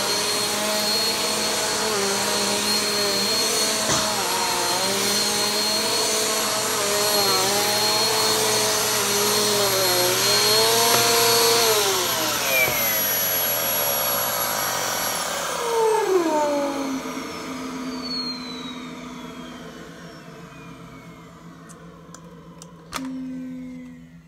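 Upright vacuum cleaner running on carpet, its motor whine wavering in pitch as it is pushed. About two-thirds of the way in it is switched off and winds down with a falling whine. A short click comes near the end.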